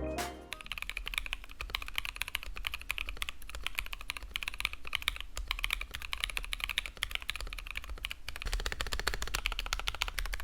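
Fast, continuous typing on a DNA65 65% mechanical keyboard with lubed NovelKeys Cream linear switches and Coral Sea keycaps: a dense clatter of keystrokes, with a brief pause about eight seconds in.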